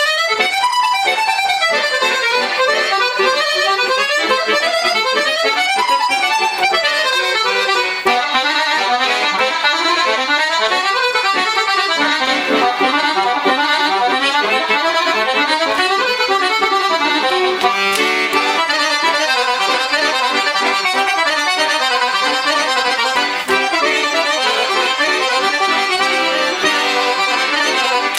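Paolo Soprani piano accordion being played in a sound test after tuning and servicing. It carries a fast melody in quick runs of notes over a steady accompaniment, without a break.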